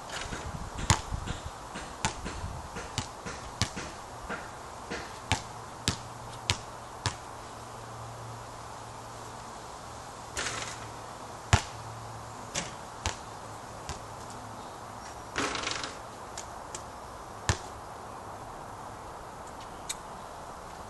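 Basketball hitting the hoop and bouncing on the court: a run of sharp bangs through the first seven seconds, then single bangs spaced out, the loudest about a second in and again near the middle. Two short rustling bursts come in between, over a faint steady hum.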